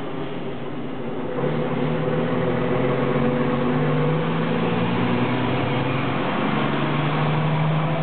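Truck engine running, a steady drone that grows louder about a second and a half in.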